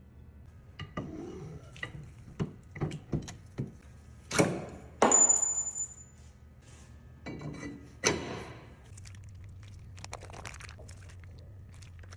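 Metal tools and parts clinking and knocking during work on the truck's axle: a run of sharp knocks, then louder scraping rushes about four and eight seconds in, the first with a brief high ring.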